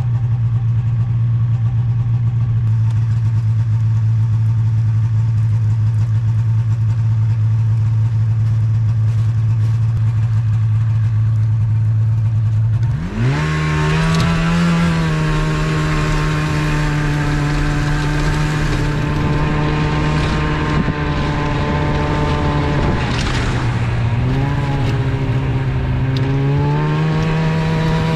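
Polaris snowmobile engine idling steadily, then revving up about halfway through as the machine pulls away towing a sled. It runs at a steady higher pitch, eases off briefly, then speeds up again near the end.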